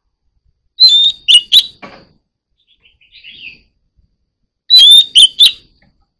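Oriental magpie-robin singing: two loud bursts of song about four seconds apart, with a softer short warbled phrase between them.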